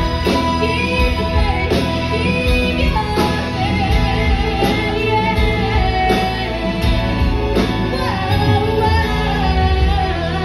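Live band music: a female singer over guitars, bass, keyboard and drums, near the close of a pop ballad.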